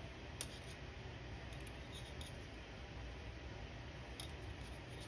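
Faint handling sounds of crocheting over wire: a few light clicks of a metal crochet hook against the craft wire and stitches, the clearest about half a second in and near the end, over a low steady room hum.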